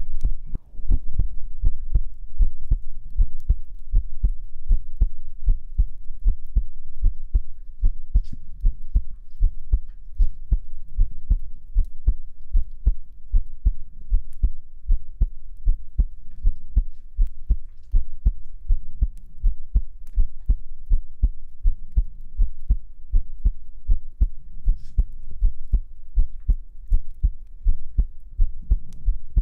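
A human heartbeat picked up close by a microphone: a steady, even rhythm of low thumps, about two a second.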